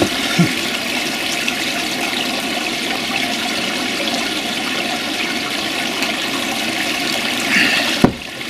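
Water pouring steadily from a stone water-feature spout into a koi pond, a continuous splashing. A single sharp knock comes near the end.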